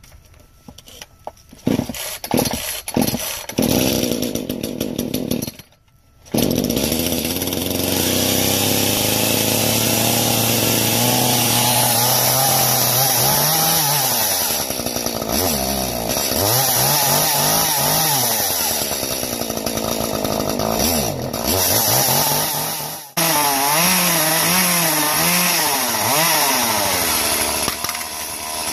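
Echo CS-310 30cc two-stroke chainsaw: a few short uneven bursts at first, then running steadily and revving up and down again and again while cutting through a small tree, with one brief drop near the end.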